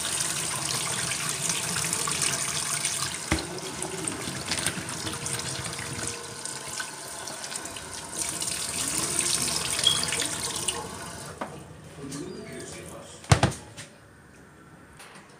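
Kitchen tap running into a plastic bowl of diced potatoes and carrots in a stainless steel sink as the vegetables are rinsed by hand. The water stops about eleven seconds in, and a single sharp knock follows near the end.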